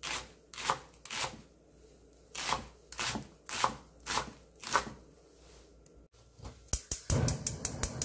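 Chef's knife slicing a green onion into rounds on a wooden cutting board, a knock on the board with each stroke, about eight strokes over five seconds. Near the end a quick run of clicks follows, with some handling noise.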